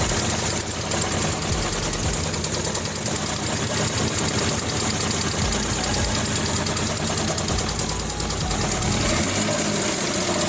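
Suzuki F6A three-cylinder engine, freshly overhauled, running steadily.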